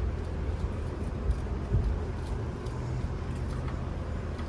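Steady low rumble of city street traffic, with a few faint clicks and two light knocks about a second and a half in.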